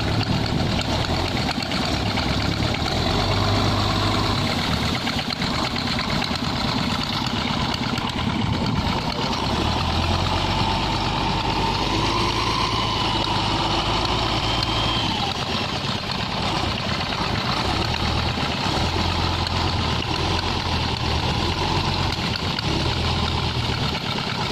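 Diesel engine of a Hino-engined wooden tug boat running steadily while it tows a heavy log. Its low drone swells and eases several times as the load and throttle change.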